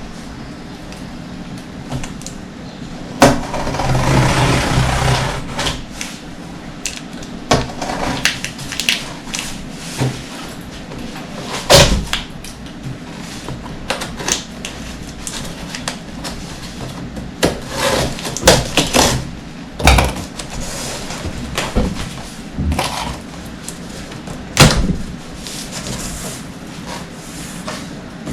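Microwave oven's cardboard box and packing being opened and handled: a stretch of scraping and rustling a few seconds in, then a scatter of knocks and thumps, the loudest about 12, 19 and 25 seconds in.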